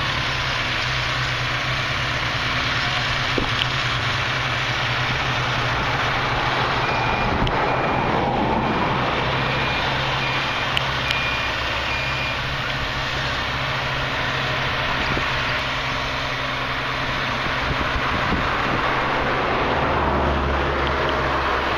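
Fire brush trucks' engines running steadily, with a run of short, evenly spaced high beeps like a truck's reversing alarm about a third of the way through.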